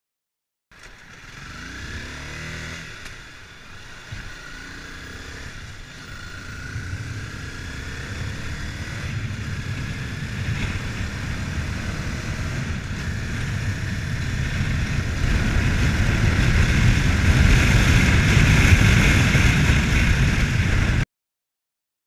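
Honda CBR250R's single-cylinder engine pulling away and accelerating, its pitch rising at first, with rushing ride noise that grows steadily louder with speed. The sound starts about a second in and cuts off abruptly near the end.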